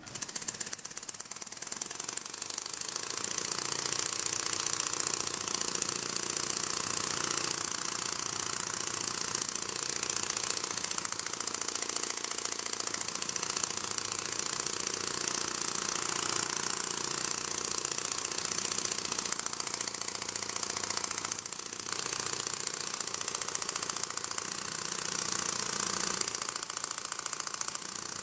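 Robotic hummingbird's motor-driven flapping mechanism and wings running at about 14 wingbeats a second: a steady mechanical buzz with fast, fine ticking and a strong high hiss. It starts right at the beginning.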